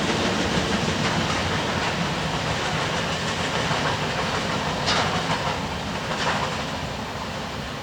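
Freight train cars rolling past, their wheels clattering over the rail joints, with a couple of sharp clanks about five and six seconds in; the sound eases off slightly toward the end.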